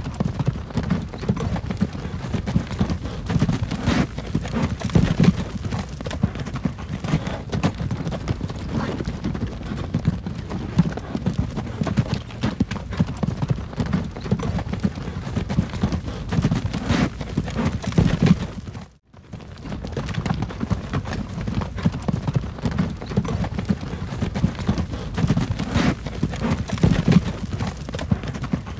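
Horse-drawn wagon on the move: steady clip-clop of hooves over the rumble and rattle of the wagon's wheels. The sound cuts out for a moment about two-thirds of the way through, then carries on the same.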